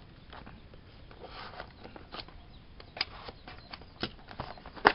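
Utility knife cutting into a plastic blister package, with irregular scraping and scattered sharp clicks of the stiff plastic being handled; the loudest click comes just before the end.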